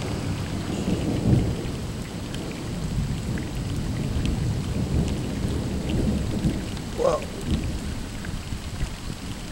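Thunder rumbling long and low, swelling about a second in and again around six to seven seconds, over steady rain.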